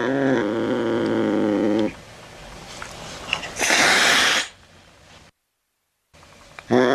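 Domestic cat yowling in one long, wavering call that stops about two seconds in, followed by a short hiss. After a moment of dead silence, another long yowl begins near the end.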